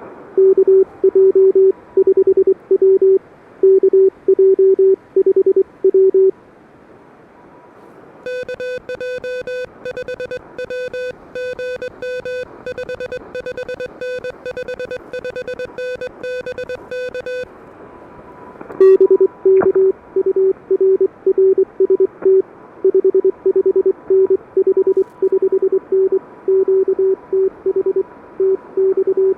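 Morse code (CW) from an Elecraft KH1 transceiver: a low keyed tone sends for about six seconds, then a higher, buzzier keyed tone answers for about nine seconds, then the low tone keys again until the end. Receiver hiss and a faint steady higher whistle sit underneath, and there is a click just before the low tone returns.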